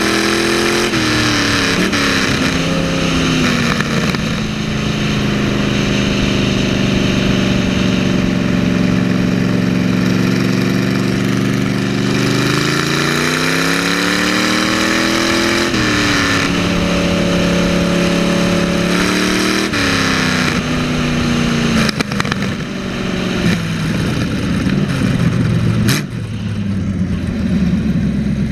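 Big-block Chevy V8 in a lawn mower running under way, its pitch easing off at first, holding steady, climbing again about twelve seconds in, then dropping about twenty seconds in and running lower to the end. A sharp click comes near the end.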